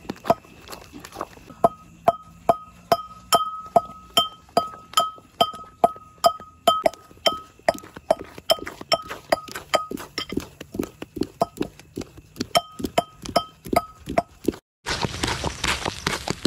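A long wooden paddle stirring thick thothal in a large metal pot, knocking against the pot about twice a second so the metal rings with each stroke. After a brief break near the end, the stirring is denser and noisier.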